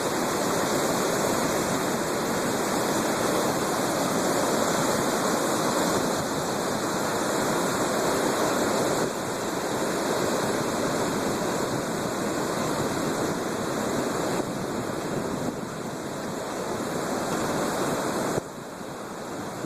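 Stormy Black Sea surf: a steady, dense rush of heavy waves breaking. Its level drops abruptly a few times, most of all near the end.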